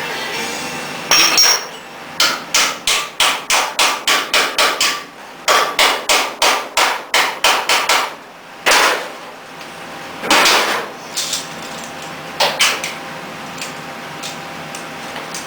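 Hammer blows on sheet metal: two quick runs of about ten strikes each, then three single blows with a short ring after each.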